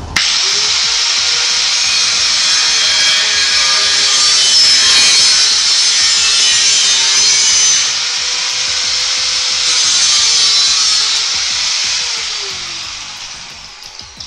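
Angle grinder cutting steel tubing. The grinder starts abruptly and runs loud under load, its motor pitch dipping and recovering as it bites. About twelve seconds in it is switched off and winds down with a falling whine.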